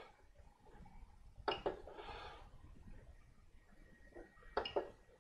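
Faint steady hum of a Noctua 40 mm hotend cooling fan running on a 3D printer, with two brief soft noises, one about a second and a half in and one near the end.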